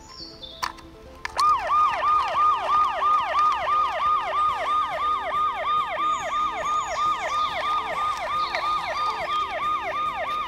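Toy fire truck's electronic siren: a rapidly repeating falling wail, about three sweeps a second, starting about a second in.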